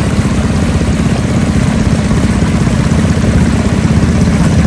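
Small boat's engine running steadily under way: a loud, even engine note with rapid low pulsing.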